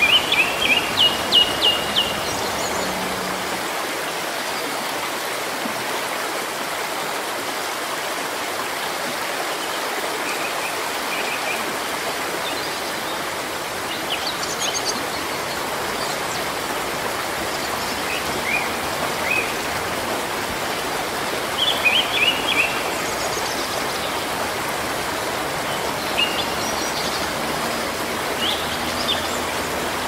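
Small waterfalls and an alpine brook running steadily, with small birds chirping over the water in short runs of quick high notes every few seconds. The loudest run, about six notes, comes right at the start.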